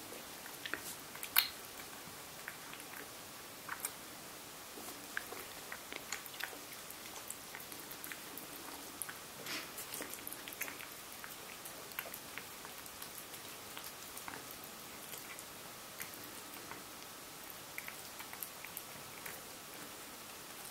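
Domestic cat eating noisily from a bowl: irregular smacking and chewing clicks, with one sharper click about a second in.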